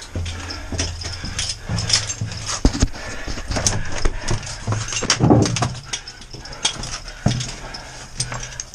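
Heavy breathing and strained grunting of a person crawling through a tight mine passage, with many scrapes and knocks of body and gear against rock and timber.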